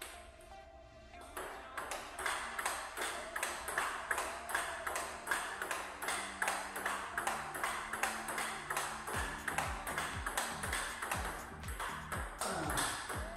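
Table tennis ball hit back and forth in a rally: a quick, even run of sharp clicks as it strikes bats and table. Background music plays under it, its deep bass beat coming in about two thirds of the way through.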